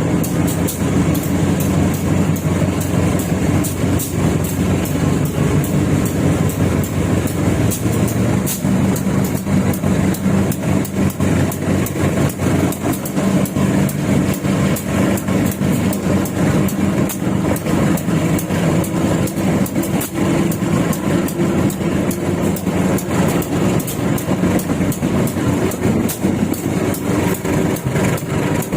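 Local passenger train running, heard from inside a coach: a steady low engine drone with a dense, fast rattling clatter of the carriage and wheels on the track.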